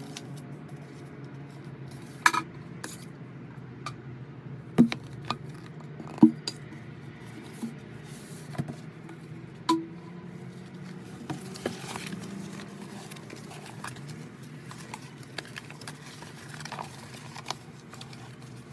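Album packaging being handled and unboxed: scattered light clicks, taps and rustles, with a few sharper knocks as boxes and their contents are set down.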